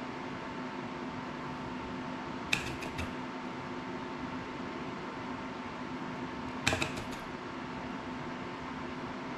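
Steady background hum with a faint constant tone, broken twice by a short cluster of three or four sharp clicks, a quarter of the way in and again past two-thirds: small tools and electronic parts being picked up and set down on a work table while soldering.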